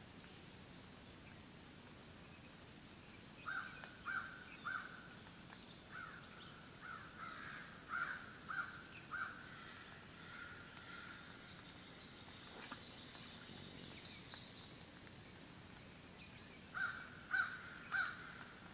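Steady high-pitched drone of insects, with a bird calling in short repeated notes, about two a second. A run of calls comes a few seconds in, and three louder ones come near the end.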